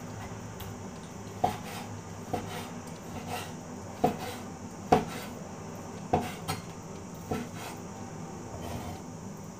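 Meat cleaver chopping chicken breast into chunks on a wooden chopping board: sharp knocks of the blade striking the board, about one a second at an uneven pace.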